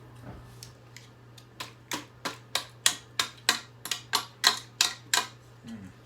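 About a dozen sharp, evenly spaced knocks, roughly three a second, as a part of a hairdryer is struck repeatedly to break it off.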